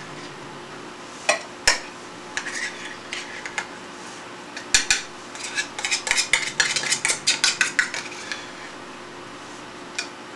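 Utensil clinking and scraping against a dish as cat food is dished out: a few scattered knocks at first, then a quick run of scrapes and clinks from about five seconds in.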